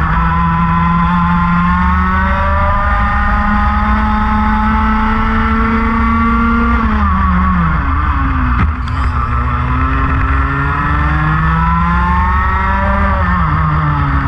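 Race car engine heard onboard, its revs climbing slowly, falling sharply about seven seconds in, then climbing again and falling once more near the end, over a steady low rumble. A single sharp knock comes just after the first drop.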